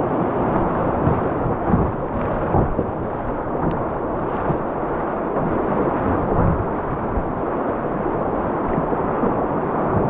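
River rapids rushing around a canoe running whitewater: a loud, steady rush of water, with occasional short low thumps.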